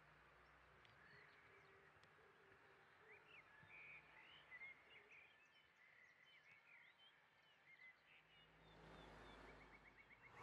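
Faint outdoor ambience with scattered bird chirps. A soft rushing noise swells near the end.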